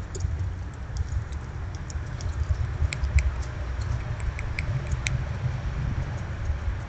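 Squirrels foraging through seed on snowy ground: scattered small clicks and ticks, a few sharper ones around three and five seconds in, over a steady low rumble.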